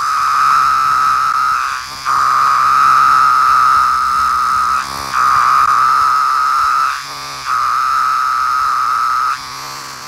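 Periodical (17-year) cicada, Magicicada, calling: a loud, steady buzz held two to three seconds at a time, breaking off briefly between calls about three times.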